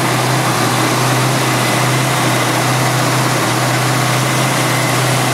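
Freshly rebuilt 289 cubic-inch two-barrel Ford small-block V8 of a 1968 Mercury Cougar running steadily on its first run since the rebuild.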